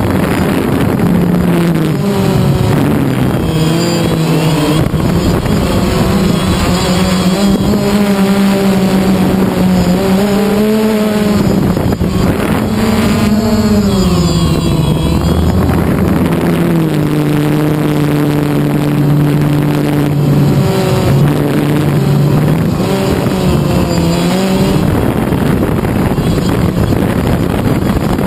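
Phantom quadcopter's electric motors and propellers whining, heard from a camera mounted on the drone itself. The hum steps up and down in pitch several times as the throttle changes while it flies.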